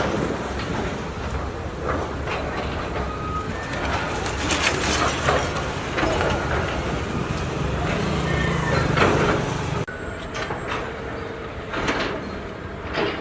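Bulldozers demolishing a building: heavy engines running with a low rumble under repeated clanks and clatters of breaking masonry and debris. The sound drops and changes suddenly about ten seconds in.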